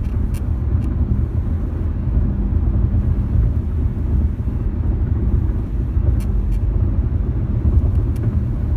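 Steady low road rumble inside a 2018 Lexus RX 450h's cabin, with a few brief high creaks from the driver's seat, a cluster of them about six seconds in.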